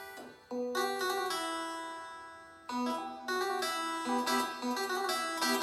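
Yamaha DX7 FM synthesizer playing a plucked, harpsichord-like patch. A chord rings and fades for about two seconds, then new notes come in and turn into a quicker run.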